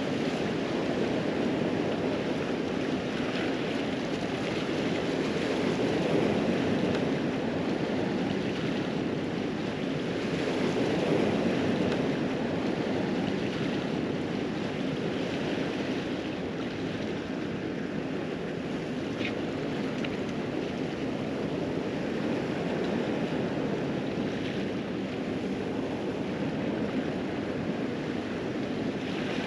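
Small sea waves washing steadily over a rocky shoreline, swelling and easing slightly.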